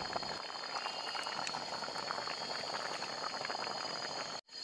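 Fish curry in coconut milk bubbling at a full boil in a wok over a wood fire, with a steady popping crackle of bursting bubbles. It breaks off for a moment near the end.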